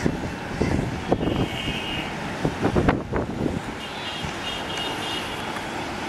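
Metro train on an elevated viaduct rounding a curve, heard from a distance over a steady city rumble, with a faint high wheel squeal coming and going twice. Irregular louder low rumbling bursts come about a second in and again around the middle.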